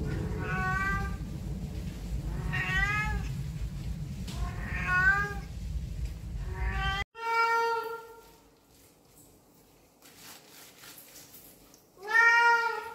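A Persian cat meowing repeatedly, about six separate meows, each rising then falling in pitch; the last one, near the end, is the loudest. A steady low rumble lies under the first half and stops abruptly.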